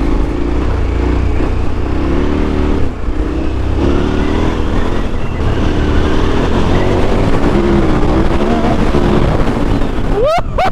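KTM 1290 Super Adventure S V-twin engine running under riding load off-road, its note rising and falling with the throttle, over a steady low rumble of wind and terrain on the microphone.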